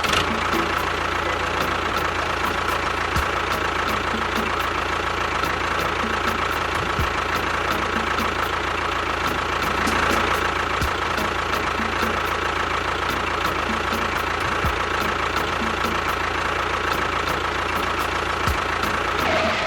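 Small motor-driven machine running steadily, a continuous whine with a fast, regular ticking over it.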